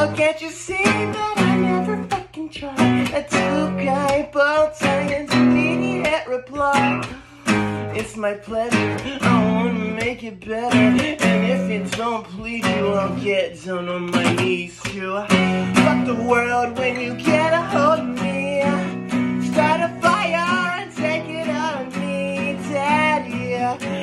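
A man singing while strumming an acoustic guitar.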